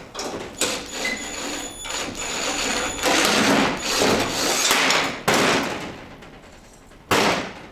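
Cordless impact driver running in reverse, hammering out bolts from nuts freshly welded onto a steel carrier, in several bursts with the longest in the middle. A sharp metallic knock near the end.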